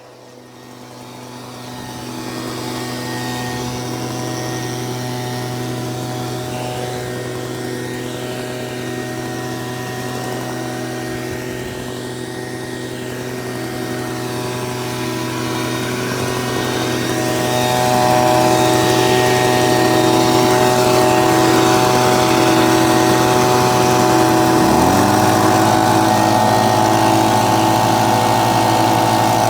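Two two-stroke handheld leaf blowers, a Stihl BG 55 and an Echo, running together with a steady engine drone. About two-thirds of the way through the sound gets louder as one is set to full throttle on its cruise control, and a rising tone comes in near the end.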